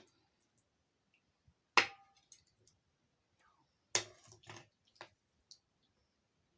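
Serving spoon clinking against cookware as stew is dished out: a sharp clink with a short ring about two seconds in, another sharp knock about four seconds in, then a few light clicks and taps.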